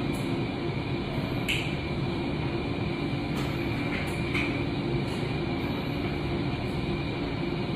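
Steady hiss and hum of room ventilation, with a few brief, faint rustles of protective gowns and bedsheets being handled.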